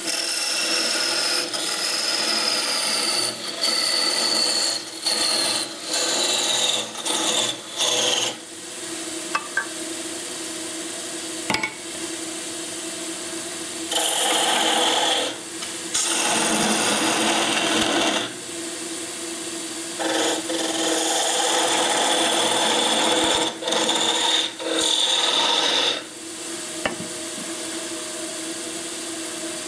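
Elm blank spinning on a wood lathe while a narrow turning tool cuts into it: loud scraping, rasping cuts in passes of a few seconds with short breaks between them, over a steady hum. A high whistle from the cut falls slowly in pitch over roughly the first eight seconds.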